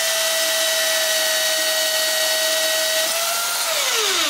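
Metal-cutting bandsaw running through steel exhaust tubing with a steady whine. About three seconds in, the tone lifts slightly as the cut finishes and the load comes off. The saw is then switched off and its motor winds down, pitch falling.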